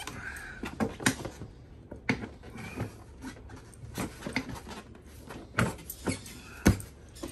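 Irregular knocks and plastic clacks as the Yamaha Banshee's plastic bodywork is pushed and knocked into place, with the loudest knock near the end.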